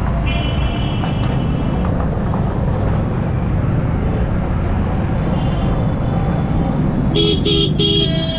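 Vehicle horns honking in slow night traffic over the steady low rumble of a motorcycle ride: one high horn held for about a second and a half near the start, then four short, loud blasts near the end.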